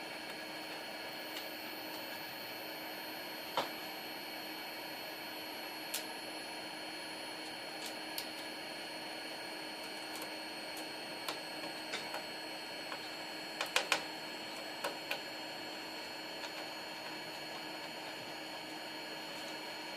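Sparse small clicks and taps of computer parts being handled while a motherboard is fitted into a PC case, with a quick run of three clicks about two-thirds of the way through. Underneath runs a steady hiss with a faint high whine slowly falling in pitch.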